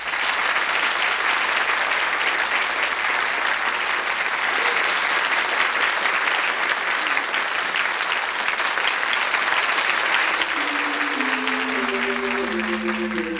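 Studio audience applauding steadily after a song. Near the end, a slow run of falling musical notes comes in under the clapping.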